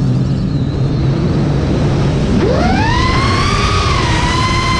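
FPV quadcopter's four brushless motors (T-Motor Velox 2306.5, 1950kv) spinning 5.5-inch props. A low hum about halfway through rises sharply into a high whine as the throttle is punched, then holds high, with a loud rushing rumble under it.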